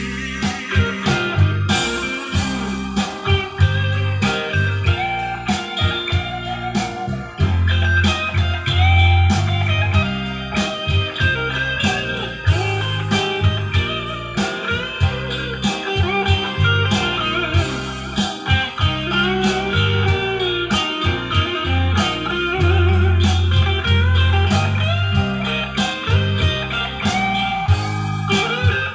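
Blues music led by guitar, with a heavy bass line and drums, played through a pair of Tannoy Berkeley loudspeakers fitted with upgraded external crossovers.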